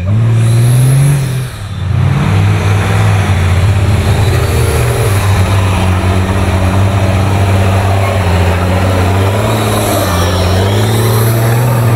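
Toyota 60 Series Land Cruiser winch truck's engine revving hard under load as it climbs; the pitch rises in the first second or so, dips briefly, then holds high and steady.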